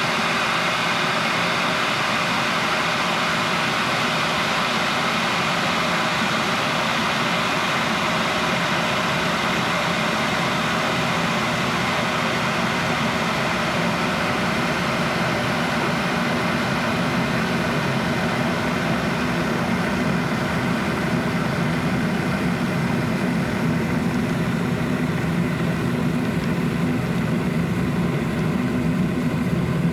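Kettle boiling: a steady rushing, bubbling noise of water at a rolling boil. In the second half it takes on a deeper rumble.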